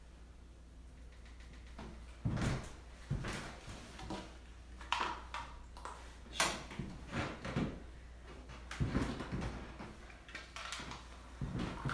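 Scattered light knocks, bumps and rustles of a person moving about and handling things, starting about two seconds in, over a faint steady hum.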